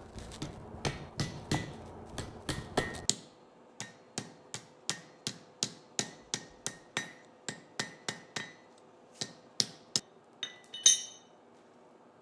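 Blacksmith's hammer striking hot half-inch steel stock on an anvil, shaping a leaf: steady ringing blows about three a second. A low rumble under the first few seconds cuts off suddenly, and there is a brief clinking near the end.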